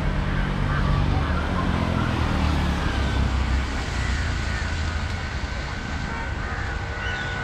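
Road traffic: a motor vehicle's engine passes, loudest in the first three seconds and then fading, over a steady wash of outdoor noise.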